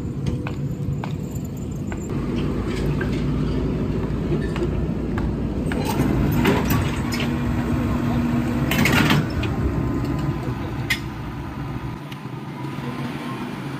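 Road traffic on the adjacent road: a heavy vehicle's engine running with a steady low rumble, with louder passing noise around six and nine seconds in.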